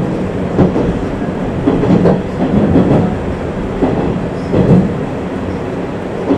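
485-series electric train running at speed, heard from inside the passenger car: a steady low rumble with an irregular clatter of wheels over rail joints, about one knock a second.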